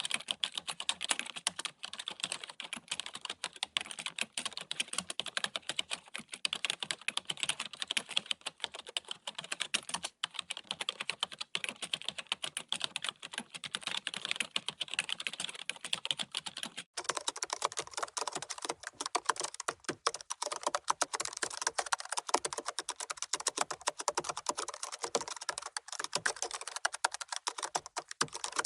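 Fast, continuous typing on a computer keyboard: a dense stream of key clicks. About two thirds of the way in the sound changes, losing its low thud and becoming brighter and clickier.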